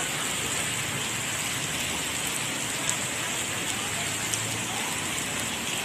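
Heavy rain falling steadily, a constant hiss with a few sharp ticks of drops striking.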